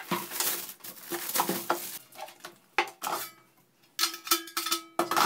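Plastic wrapping rustling and crinkling as it is pulled off a Sinbo SCO-5055 air fryer. This is followed by several sharp clicks and clatters as the fryer's basket drawer is handled and knocked against the unit.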